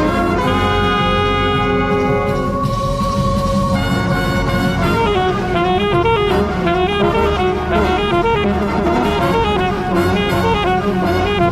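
Brass and woodwind show band playing: a held chord for the first few seconds, then one sustained note, then a quick-moving melodic line over the ensemble from about four seconds in.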